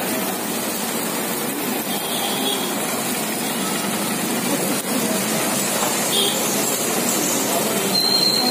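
Steady sizzle and burner roar of a flat iron street-food griddle heated by open flames, with egg and shredded parotta frying on the hot plate.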